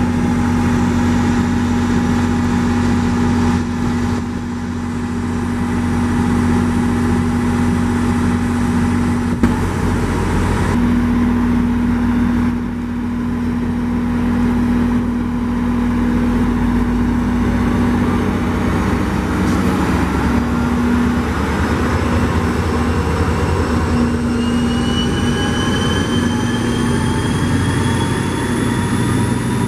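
NJ Transit GP40PH-2B diesel-electric locomotive running under power as it hauls its train, a loud, steady engine drone. In the last few seconds several whining tones climb steadily in pitch.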